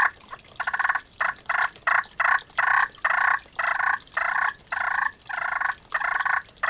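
Enticer Raspy Thunder glass-over-glass turkey pot call stroked with a wooden striker, giving a long run of soft yelps at about three notes a second.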